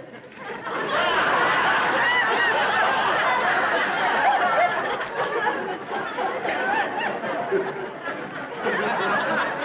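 Studio audience laughing loudly. The laughter builds about a second in, stays high, eases a little in the second half and swells again near the end.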